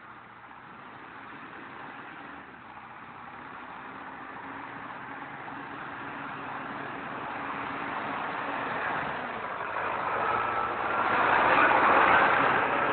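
Caterpillar 120G motor grader's diesel engine approaching, growing steadily louder and loudest near the end.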